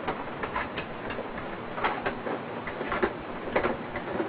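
Plastic toy Batmobile being handled and moved about, giving scattered light clicks and knocks over a steady hiss.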